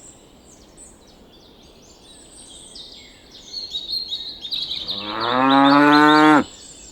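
A cow mooing once, a long call of about a second and a half near the end that rises in pitch at the start and then holds steady. Before it, birds chirp in the background.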